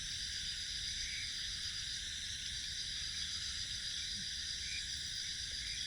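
Steady high-pitched chirring of night insects such as crickets, in several unbroken layers, over a low rumble.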